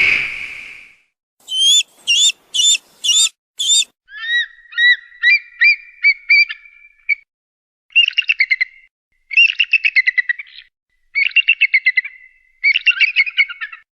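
Eagle calls: a long scream fades out at the start, then five short high calls in quick succession, a run of chirping whistles, and several bouts of fast, high chattering notes.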